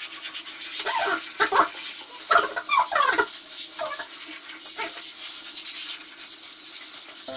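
Shiba Inu whining: a string of short cries that bend up and down in pitch, over a steady hiss of water.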